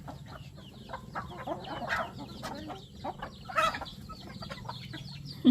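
A flock of native chickens clucking as they are fed, many short overlapping calls, with one louder call about three and a half seconds in.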